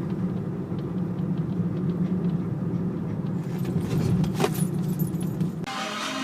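Steady low rumble of a running motor vehicle, with a brief jingle about four seconds in. Music comes in near the end.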